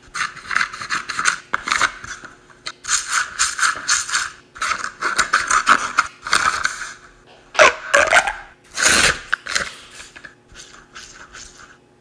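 Irregular scratchy rubbing and scraping of a fidget toy being worked by hand, in quick uneven strokes, with a brief squeak just before the loudest scrape near the end.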